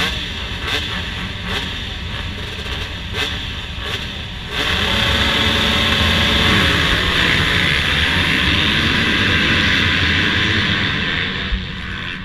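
A full start line of motocross bikes revving on the gate, then about four and a half seconds in the whole field goes to full throttle at once: a sudden loud mass of engine noise from many bikes that holds, then fades near the end as the pack pulls away.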